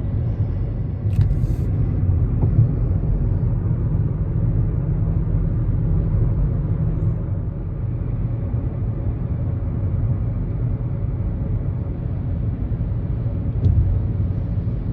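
Steady low rumble of a car being driven, road and engine noise holding an even level.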